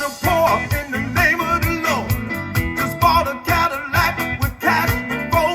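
Electric blues song playing: electric guitar picking bent-note phrases over bass and a steady drum beat.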